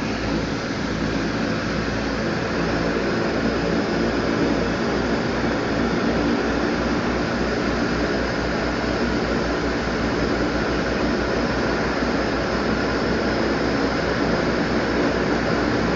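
Seaplane engines running at takeoff power, heard from inside the cabin: a steady drone with a low pulsing underneath that grows faster as the plane gathers speed across the water, getting a little louder a few seconds in.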